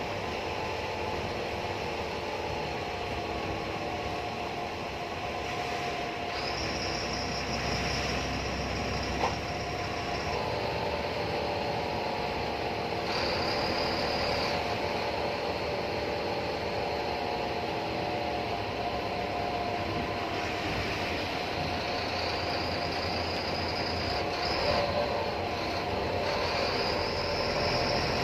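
Steady engine and road noise inside a moving long-distance bus, with a thin high whine that comes and goes several times and a single sharp knock about nine seconds in.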